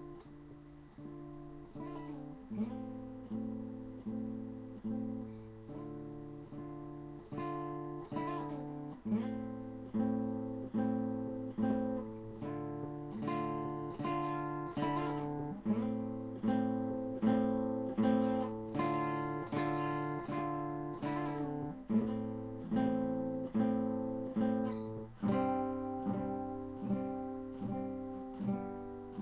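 Acoustic guitar strummed in a steady rhythm, each stroke ringing on, with the chord changing every couple of seconds; instrumental, no singing. Heard through a webcam microphone, with the top end dulled.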